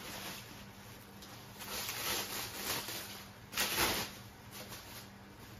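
Clear plastic wrap crinkling and rustling as it is pulled off a headlight, in irregular swells, loudest a little before four seconds in.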